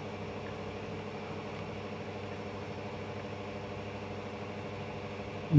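A steady low mechanical hum with a fixed pitch. Right at the end, a short voice sound falling in pitch.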